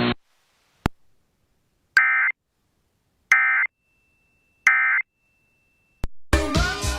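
Emergency Alert System end-of-message signal: three short, identical bursts of warbling digital data tones about 1.3 seconds apart, marking the close of the alert, after a single click. A voice starts near the end.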